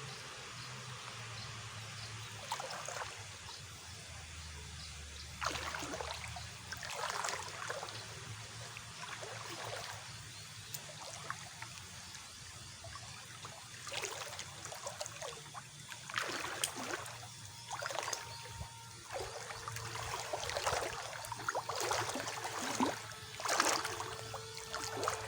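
Water splashing and trickling in short, irregular rushes, more often in the second half, over a steady low hum.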